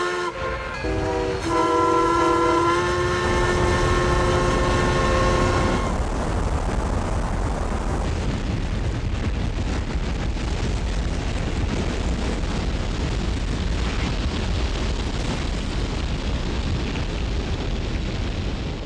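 Locomotive horn sounding a chord of several notes, its pitch stepping in the first second or so and cutting off about six seconds in. A steady, loud rumble follows.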